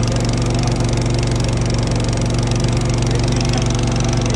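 Motorboat engine running steadily at one speed, a constant low hum that does not rise or fall.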